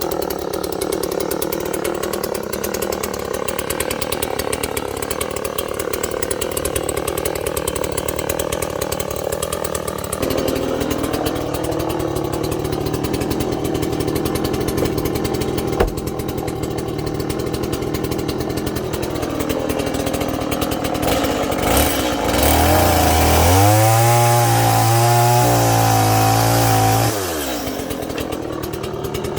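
Small petrol engine running steadily; its pitch steps up about a third of the way through. Near the end it is revved harder and louder for several seconds, then drops back abruptly to a lower running speed.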